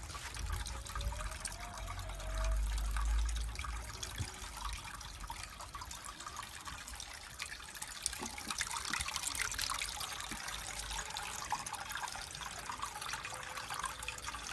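Water trickling and splashing steadily as it pours from the spouts of a tiered terracotta pot fountain into the bowls below. A low rumble swells briefly about three seconds in.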